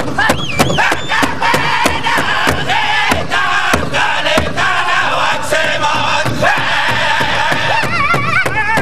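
Northern-style powwow drum group singing in high, wavering voices over a steady, fast beat struck together on one big drum.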